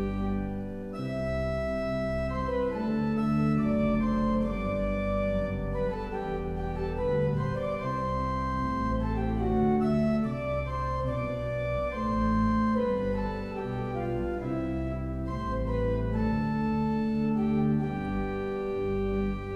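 Organ music: slow held chords that change every second or two over a sustained bass line.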